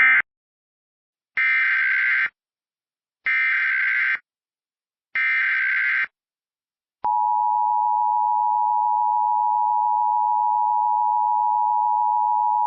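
Emergency Alert System tones. The first is a brief SAME digital data burst closing the previous alert. Then come three SAME header bursts of about a second each, buzzing, warbling digital screeches, with a second of silence between them. From about seven seconds in, the steady two-tone EAS attention signal (853 and 960 Hz) sounds and holds, announcing a new alert.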